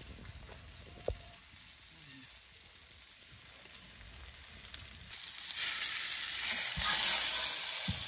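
Marinated chicken breasts sizzling in oil in a nonstick frying pan on a propane camp stove. The sizzle is faint at first and becomes loud and hissing from about five seconds in. A single click comes about a second in.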